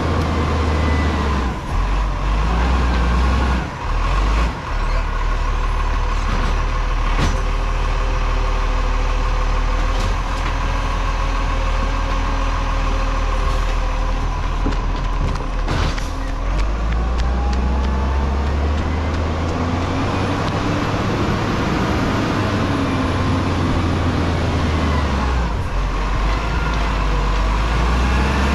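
Diesel engine of a side-loader garbage truck running as it drives up and pulls in to a kerbside bin, with a few short sharp sounds. The engine note gets heavier for about ten seconds in the second half, ahead of the hydraulic arm reaching out to grab the bin.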